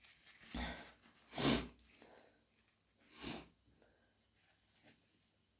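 A person with hay fever sneezing and sniffling: one loud sneeze about one and a half seconds in, with shorter nasal bursts around half a second and three seconds in.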